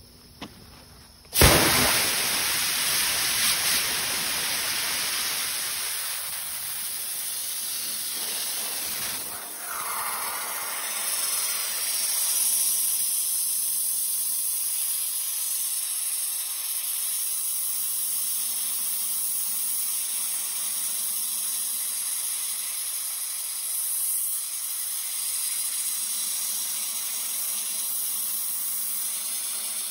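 Pressure-pot sandblaster firing screened river sand with compressed air against the rusty steel frame of a 1972 Corvette: a loud, steady hiss that starts suddenly about a second and a half in and eases briefly around nine seconds in.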